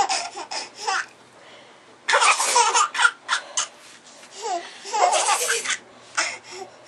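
Baby laughing at a mock sneeze, in three or four hearty bouts of breathy, repeated laughs with short pauses between them.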